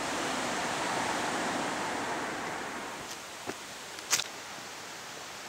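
A broad rushing noise swells and then fades away over the first three seconds, followed by a few short sharp clicks, the loudest about four seconds in, over a low steady hiss.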